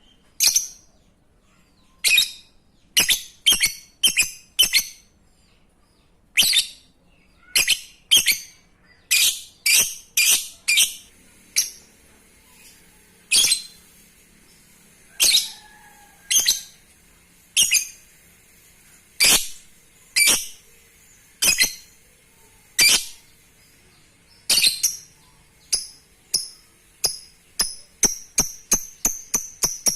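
A lovebird giving short, sharp, high-pitched chirps, roughly one a second at uneven spacing. Near the end the chirps come faster and faster, building toward a rapid chattering trill.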